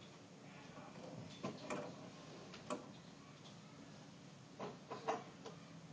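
A few faint, scattered clicks and knocks, as of small objects being handled.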